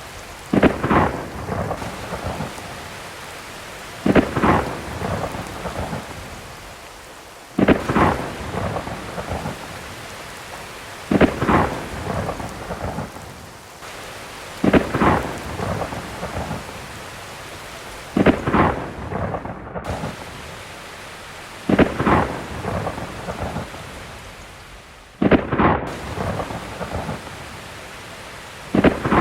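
Heavy rain falling steadily, broken by sudden loud crashes that come evenly about every three and a half seconds, each dying away over about a second.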